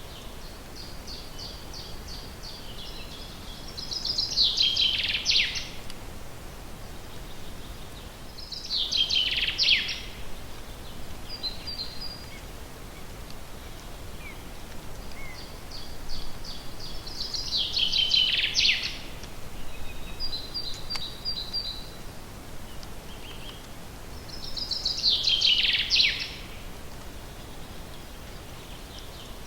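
Forest songbirds singing: one bird repeats a loud trilled phrase about two seconds long four times, each phrase falling in pitch at the end, while fainter, higher trills of other birds fill the gaps over a soft background hiss.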